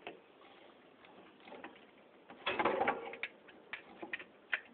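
Wire cutters snipping the wires inside a ceiling fan's switch housing: a few sharp clicks over the last two seconds, after a short louder sound about two and a half seconds in.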